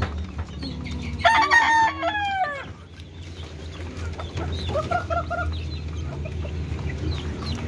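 A rooster crows once, about a second in: a loud call of about a second and a half whose pitch falls at the end. A shorter chicken call follows near the middle.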